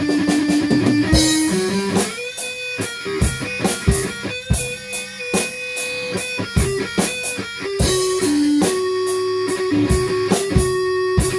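Rock music: electric guitar playing held notes over a drum kit's steady beat.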